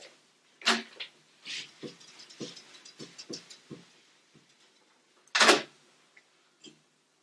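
Whiteboard eraser rubbing across a whiteboard in a run of quick strokes, then one louder, noisier scrape about five and a half seconds in.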